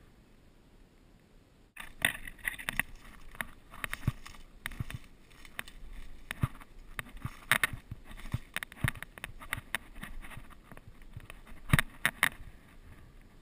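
Footsteps crunching through dry leaf litter and snapping twigs, with brush scraping past, in an irregular run of crackles that starts about two seconds in and dies away near the end.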